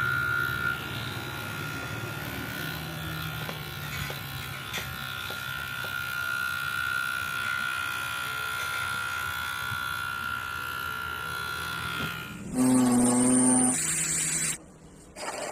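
Homemade electric shaver driven by a mini DC motor running with a steady high-pitched whine. About twelve seconds in it gives way to a louder, lower buzz for about a second.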